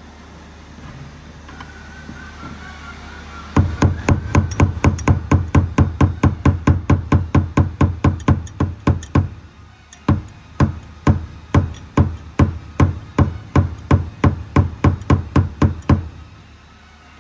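Rapid, evenly spaced sharp knocks, about four to five a second, in two long runs with a brief pause near the middle, over a steady low hum.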